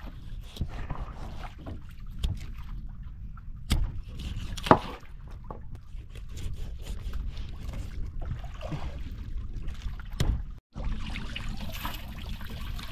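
Knife knocks and taps as a freshly caught fish is cut up on a boat, the sharpest knock a little under five seconds in, over a steady low rumble.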